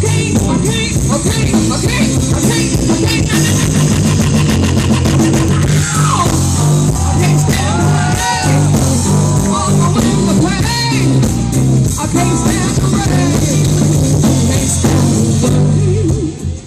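Live blues band playing an instrumental passage: a steady, repeating bass line with drums under a lead line that bends up and down in pitch through the middle.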